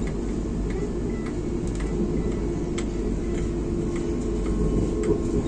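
Running noise of a moving passenger train heard from inside the coach: a steady low rumble with a few scattered light clicks, and a faint steady hum that comes in partway through.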